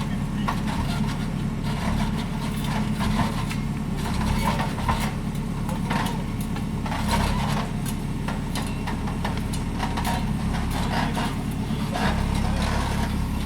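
An engine runs steadily, the low hum of earthmoving machinery working soil. Frequent short clunks and rattles of the machine are heard over it.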